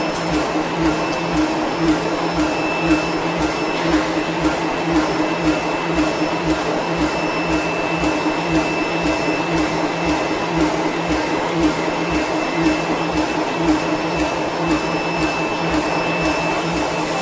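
Industrial machinery running: a steady motor hum with a fast, even pulsing.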